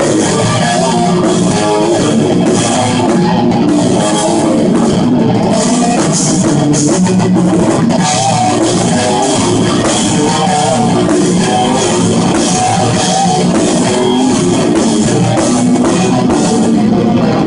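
Live heavy metal band playing loud: distorted electric guitars and bass over a pounding drum kit, a dense steady wall of sound.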